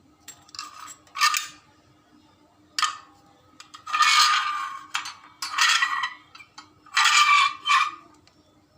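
Hard plastic and metal scraping and clinking in about five short bursts as the soldering iron's power connection is made: its plug and cable are handled and pushed into place.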